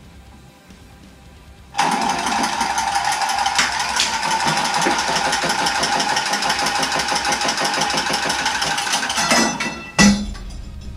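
A cordless power tool working on copper pipe: its motor runs under load for about seven seconds with a fast, even rhythm, winds down, and then gives a sharp click.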